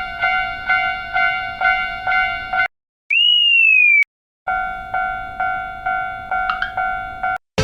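Japanese railroad crossing warning bell ringing its electronic "kan-kan" about two strikes a second. Near the middle the bell breaks off for a single loud whistle tone lasting about a second, falling slightly in pitch and cut off sharply. The bell then resumes and stops just before the end.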